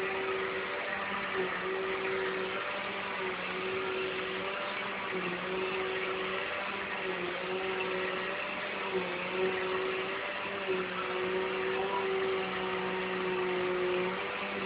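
Household vacuum cleaner running: a steady motor hum and whine whose pitch dips briefly now and then, over a constant rush of air.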